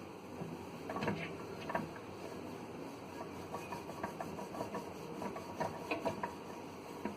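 Scrubbing the inside of a microwave by hand, an irregular run of scratchy rubbing strokes and small knocks against the cavity walls, loosening grime softened by a steamed vinegar and baking soda solution.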